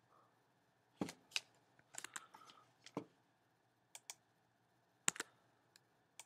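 Computer keyboard keystrokes: about a dozen separate taps, some in quick pairs, as the tab key is pressed to indent paragraphs of text.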